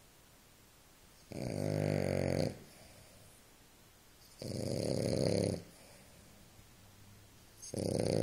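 French bulldog puppy snoring in its sleep: three long snores, each about a second long, coming roughly every three seconds, the last starting near the end.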